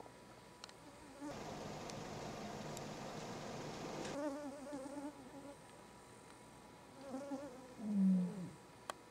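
Male lion roaring: after a few seconds of breathy rushing sound, a series of short wavering grunts, the loudest a falling grunt about eight seconds in.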